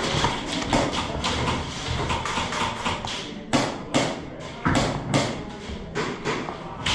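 Footsteps and gear knocks of an airsoft player on the move: a string of short thuds and taps, about two a second in the second half.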